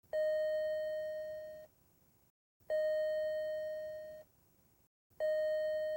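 PetSafe Smart Pet Doorbell chiming three times, a single steady bell-like note roughly every two and a half seconds. Each note fades slowly and then cuts off. It is the alert that a pet wearing its SmartKey is at the door.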